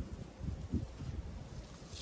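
Wind buffeting the microphone in uneven gusts.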